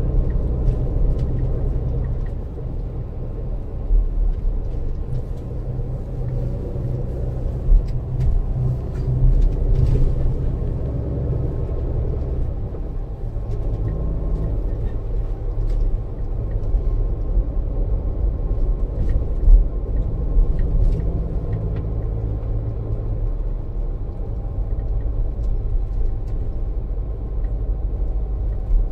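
Neoplan Tourliner coach's diesel engine and road noise heard from inside the passenger cabin while it drives: a steady low rumble whose engine note shifts a few times, with occasional knocks and rattles.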